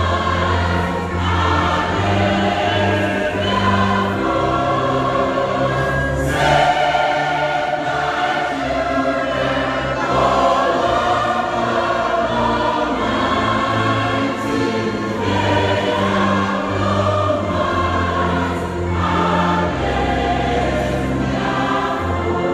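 Large mixed choir singing a choral anthem, accompanied by instruments holding sustained low bass notes that shift every second or two.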